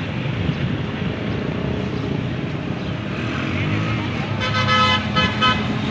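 Steady road-traffic noise, with a vehicle horn sounding twice near the end: one longer toot of under a second, then a short one.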